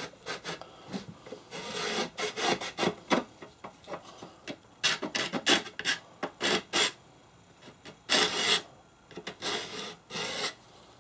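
Hand scraper scraping along the wood of an antique tool chest, digging old dirt out of a joint crease in a series of irregular scraping strokes of varying length.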